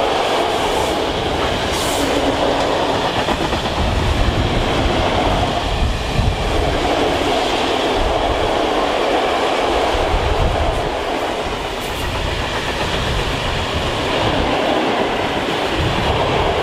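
Freight train of open-top gondola wagons rolling past close by: a steady, loud rumble and rattle of wheels on the rails, with clatter over the rail joints and a low rumble that swells and fades every few seconds.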